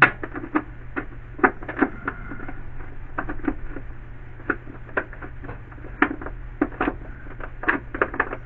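Irregular clicks and light metallic taps, a few a second and often in quick pairs or threes, as the bolts of a windshield wiper housing are started and run down hand tight. A steady low hum runs underneath.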